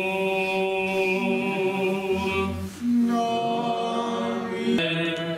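Unaccompanied Orthodox church chant: voices singing long, drawn-out notes in a slow line, with a change of note about three seconds in.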